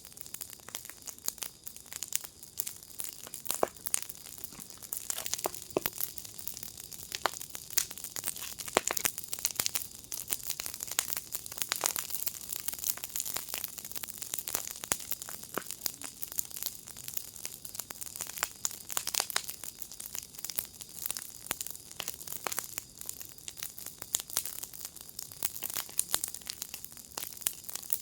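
Wood fire crackling in a fire pit: a dense, irregular run of small pops and snaps.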